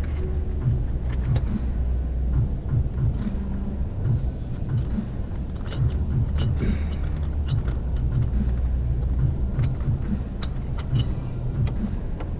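Light metallic clicks and clinks of hand tools, scattered irregularly, over a steady low rumble.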